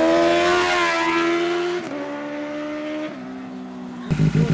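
Benelli 600i's inline-four engine riding past: a high, steady engine note that drops sharply twice and fades as the bike moves away. About four seconds in it cuts suddenly to a different, lower engine sound.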